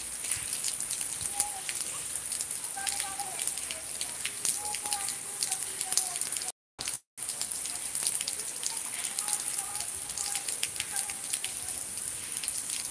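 Steady rain falling: a dense hiss full of small drop patters. The sound cuts out completely for about half a second a little past the middle.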